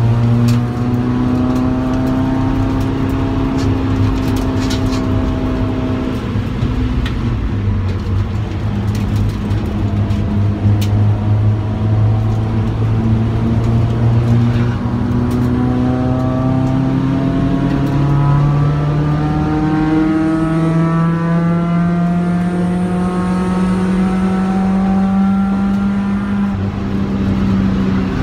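Car engine heard from inside the cabin on track, running hard under load. The engine note holds steady, eases off about six seconds in, then climbs again and steps up in pitch twice in the second half as the revs rise.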